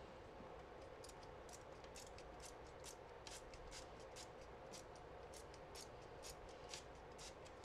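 Faint, quick scratchy strokes of a paintbrush working on watercolour paper, about three a second at uneven spacing, starting about a second in.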